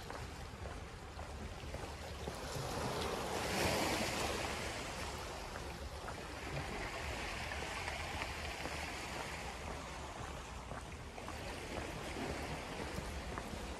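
Small sea waves washing against boulders and shingle, swelling and easing; the loudest wash comes about four seconds in. A steady low rumble of wind on the microphone runs underneath.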